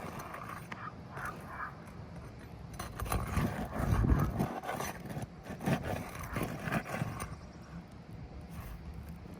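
Irregular knocking and scraping on an asphalt shingle roof as roofing tools work a shingle and its nails loose, with a cluster of heavier knocks a few seconds in.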